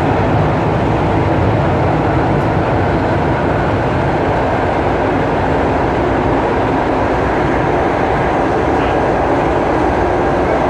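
Metro train running, heard from inside the carriage: a loud, steady rumble with rail noise.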